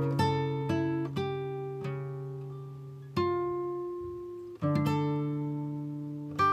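Background music: an acoustic guitar plucked slowly, its notes and chords left to ring out and fade.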